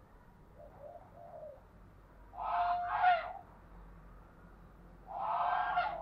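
Spotted dove cooing: a soft low coo about a second in, then two louder, rougher coos of about a second each.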